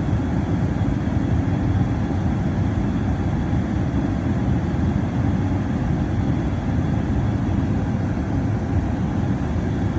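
Comfortmaker gas furnace running with its burners lit: a steady low rumble from the burner flames and combustion blower.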